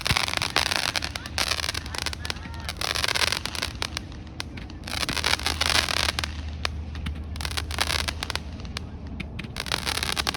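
Fireworks going off: a stream of sharp pops and cracks, with stretches of dense crackling.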